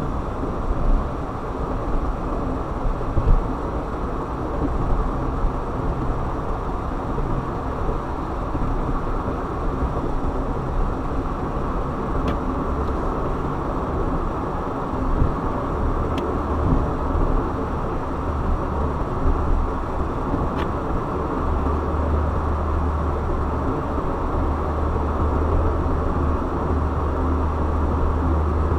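Steady road and engine noise of a car being driven, with a deep low rumble that grows stronger in the second half.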